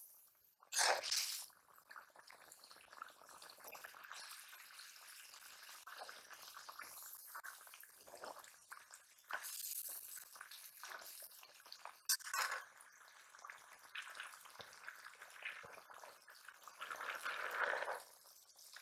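Wet stirring of a simmering curry in a metal karahi: a metal spatula works through the liquid and scrapes the pan, with louder bursts of stirring scattered through.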